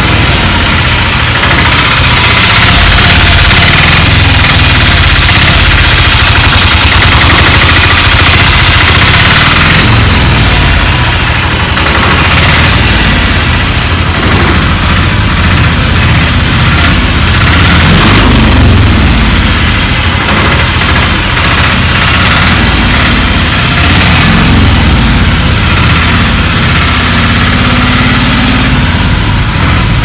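Hand-cranked auto rickshaw engine idling loud and steady. Its note shifts briefly past the middle.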